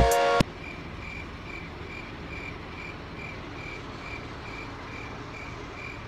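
A cricket chirping steadily, a little over two chirps a second, with a low steady rumble of distant traffic beneath it.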